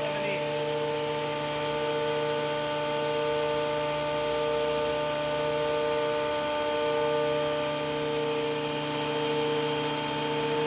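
Bauer benchtop thickness planer running steadily, its motor giving a constant whine with several steady tones.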